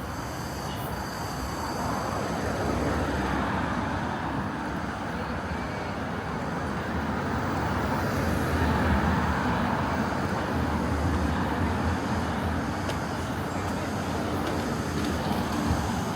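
City street traffic: vehicles passing on the road in a continuous low rumble and tyre hiss, swelling twice as heavier vehicles go by.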